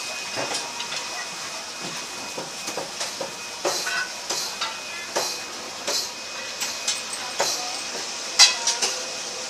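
Busy street market ambience: a steady hiss with irregular clatter and sharp clicks and knocks scattered through it, the loudest one near the end.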